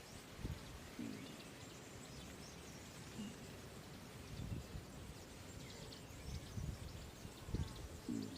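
Outdoor natural ambience: a faint steady hiss with scattered high bird chirps and a few low thuds.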